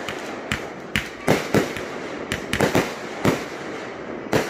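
Aerial fireworks bursting overhead: an irregular run of about ten sharp bangs over a few seconds, several coming in quick succession.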